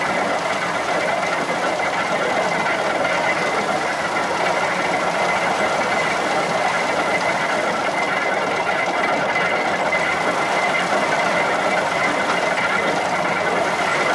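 Horse-powered threshing machine running steadily, its drum whirring with a steady hum as sheaves of corn are fed into it.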